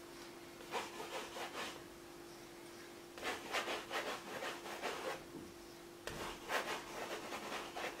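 Palette knife scraping and pressing oil paint across a canvas in three runs of short strokes: about a second in, again from about three to five seconds, and once more from about six to seven and a half seconds.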